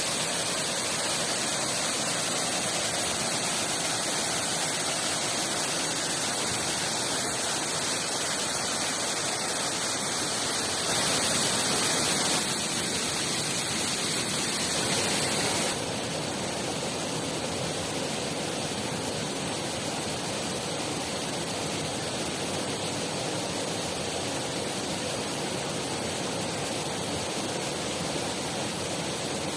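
Rushing water of a mountain river or waterfall, a steady hiss. It grows a little louder about a third of the way in, then drops abruptly to a softer, duller rush about halfway through, as at a cut between shots.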